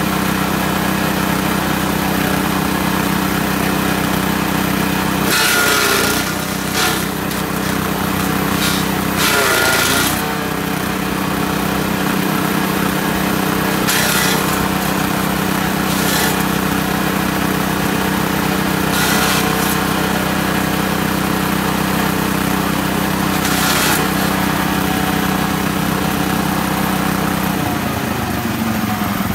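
Grass chopper driven by a small engine through a belt, running steadily, with several short bursts of shredding as leafy branches are fed into it; the engine's note dips under the load of the first two bursts. Near the end the engine is shut off and winds down.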